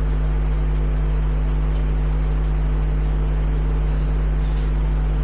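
Steady low electrical hum from the microphone and sound system, mains hum with evenly spaced overtones, unchanging and nearly as loud as the lecture speech around it.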